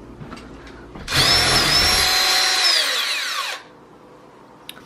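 Power drill-driver running for about two and a half seconds, removing a screw from the old deadbolt on the door. It is a steady motor whine that falls in pitch as the motor winds down.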